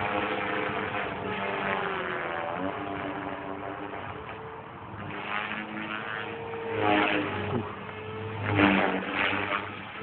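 Electric RC helicopter flying aerobatics: a motor and rotor whine made of several tones that shift up and down in pitch as the throttle and blade pitch change, with louder whooshing surges about seven and nine seconds in.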